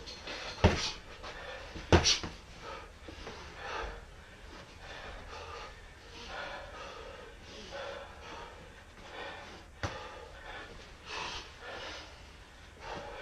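Gloved punches landing in sparring: two sharp smacks about a second apart near the start, and another about ten seconds in. Between them comes the fighters' heavy breathing.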